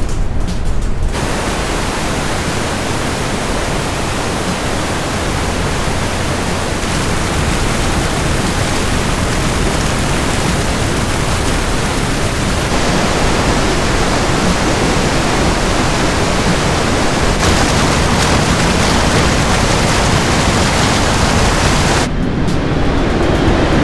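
Roar of rushing underground water in a cave, a waterfall or torrent: a loud, steady, even noise across all pitches. It starts about a second in, shifts slightly twice where recordings change, and cuts off near the end.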